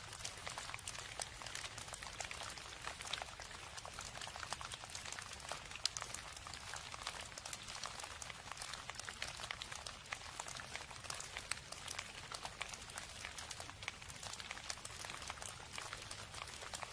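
Steady rain: a dense patter of raindrops ticking and crackling without pause, with a faint low hum underneath.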